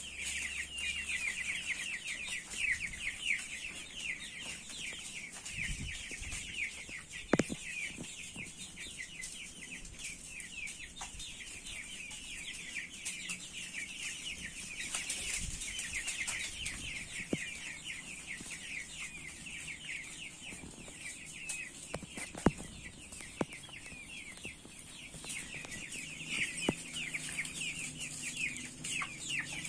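A flock of young broiler chickens peeping and cheeping, many short falling calls overlapping without a break, with a few sharp knocks.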